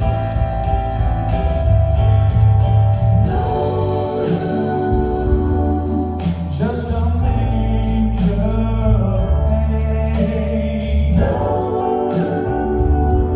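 Voices singing in harmony over instrumental backing, with long held chords and a steady bass line: a Christmas song performed at a sound check.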